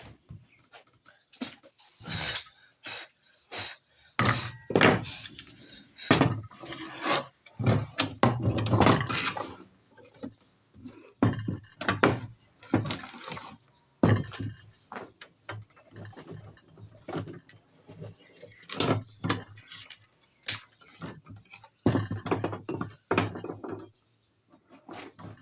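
Irregular knocks, clinks and short scraping strokes from hand work with tools and metal, in uneven runs, falling quiet near the end.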